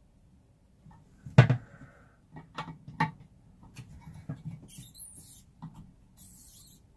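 A Phillips screwdriver tightening down a toilet seat's mounting bolts. There is a sharp knock about a second and a half in, then a string of small clicks and knocks as the screws are turned.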